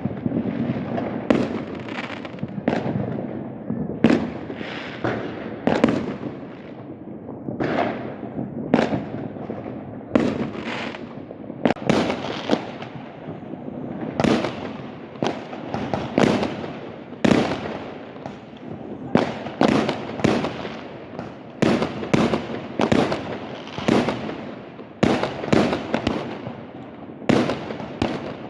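Fireworks and firecrackers going off in a continuous barrage: irregular sharp bangs, often several in quick succession, over an unbroken crackle.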